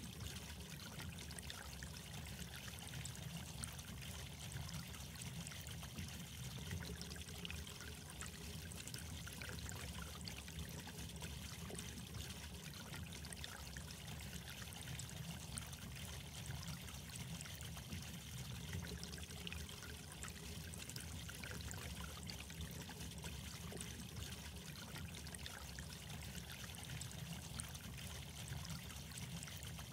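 Steady trickling, pouring water, an even running-water hiss with no breaks.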